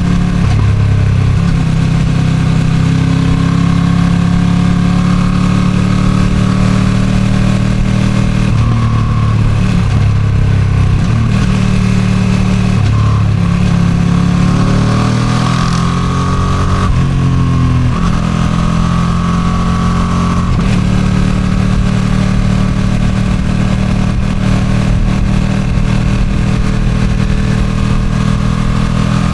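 Ducati Streetfighter V2 V-twin on its stock exhaust, running at road speed, with buffeting wind noise over the microphone. Engine speed shifts several times: it climbs for a couple of seconds past the middle, drops suddenly, then runs steady.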